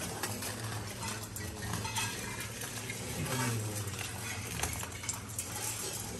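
Metal mandala offering plate and rings clinking and scraping, with rice grains rattling on the metal in many short, irregular clicks.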